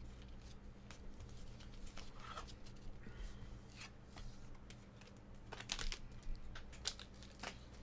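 Faint scattered rustles and clicks of trading cards and foil card-pack wrappers being handled, with a few louder crinkles in the second half, over a steady low hum.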